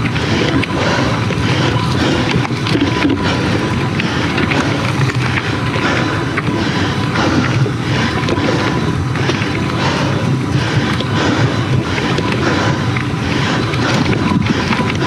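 Mountain bike rolling over a rough dirt trail: steady tyre noise with frequent rapid clattering and rattling from the bike.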